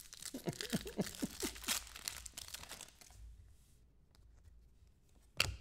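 The wrapper of a trading card pack being torn open and crinkled, busiest in the first three seconds and then quieter, with one sharp tap near the end.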